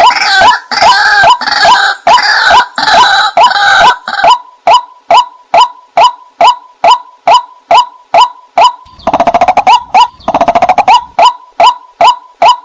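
White-breasted waterhen calling: a long run of loud, evenly repeated short calls, about three to four a second, with harsher, denser calling in the first few seconds and again around nine seconds in. This is a lure call used to draw waterhens in to a decoy.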